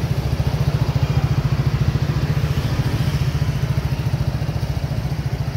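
Honda SH 2020 scooter's single-cylinder engine idling steadily through an aftermarket 4Road exhaust: an even, low exhaust pulse that sounds warm and not noisy.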